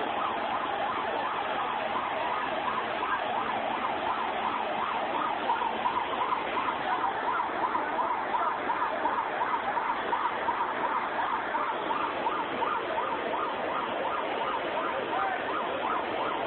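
Steady rushing noise of fast-flowing floodwater, with a fast-repeating, warbling siren-like tone over it.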